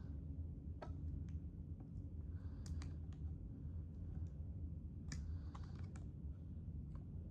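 Scattered light clicks and taps of small parts being handled inside an opened iMac G5, some in quick pairs, over a steady low hum.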